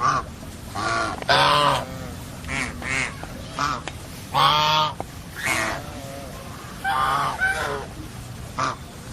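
A series of about ten short, loud honking animal calls, irregularly spaced, each lasting well under a second.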